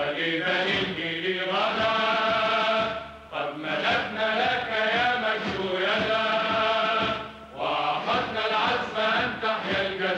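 A solo voice singing long, wavering held phrases in a chant-like song, with two short breaths between phrases, about three and seven and a half seconds in.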